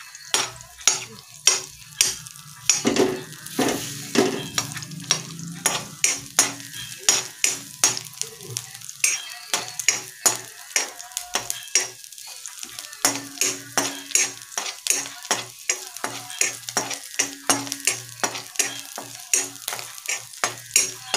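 Steel ladle scraping and tapping against a black kadai, about two or three strokes a second, while crushed garlic cloves fry in a little oil with a steady sizzle underneath.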